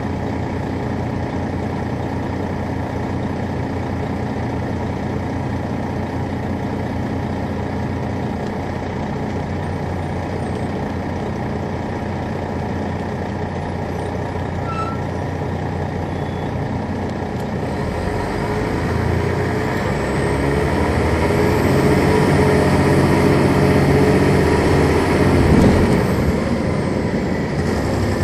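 The Detroit Diesel Series 60 diesel engine of a 2001 MCI D4000 coach bus runs steadily, then picks up from about 18 seconds in, rising in pitch and loudness with a faint high whine above it. The pitch drops back near the end.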